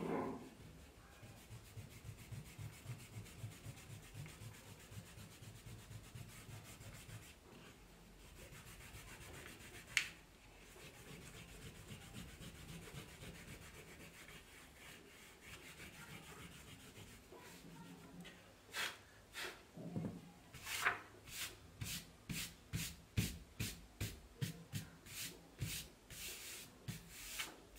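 Rubber eraser scrubbing pencil lines off drawing paper, rubbing out the pencil underdrawing beneath a dried black ink outline, at first in quick back-and-forth strokes about three a second, then more softly. There is one sharp click about ten seconds in. For the last nine seconds a hand sweeps eraser crumbs off the paper in a run of short, brisk strokes.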